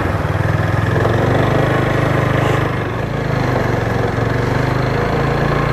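Motorcycle engine running steadily as the bike pulls away from a stop and rides along the road, with a slight dip in level about three seconds in.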